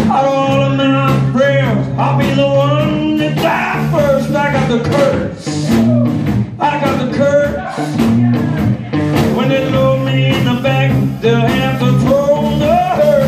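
Live blues-rock band playing: electric guitar, electric bass and drum kit, the bass holding steady low notes under drum hits. A wavering lead melody rides on top at the start and comes back about nine seconds in.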